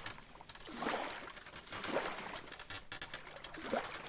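Faint sea water washing and splashing, coming in soft swells about once a second.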